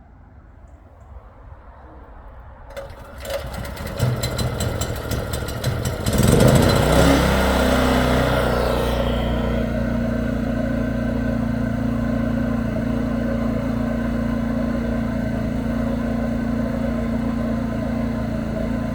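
XL3000ie 3 kW open-frame inverter generator's petrol engine starting: rattling and clicking a few seconds in, catching about six seconds in and speeding up over the next few seconds, then running steadily at full speed off load with eco mode not yet on.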